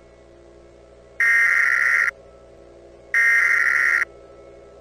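Emergency Alert System SAME header data bursts: two loud, buzzing digital bursts, each just under a second long and about a second apart, over a faint steady drone. This coded header marks the start of an emergency alert.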